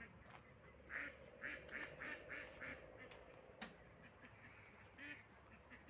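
Ducks quacking faintly: a run of short quacks about one to three seconds in and another quack near the end, with a single click in between.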